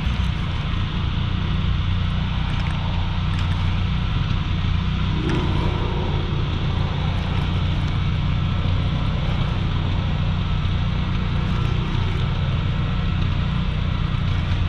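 A small motor running steadily with a low, even hum and no change in speed.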